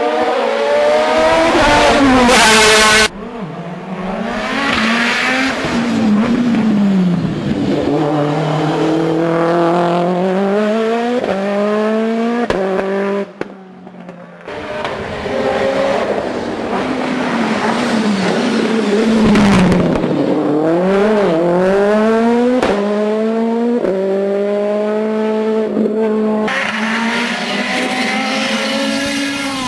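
Racing car engines at full throttle, each rising in pitch and dropping back at every gear change, in several short clips that change abruptly. First a sports prototype, then a modified Subaru Impreza.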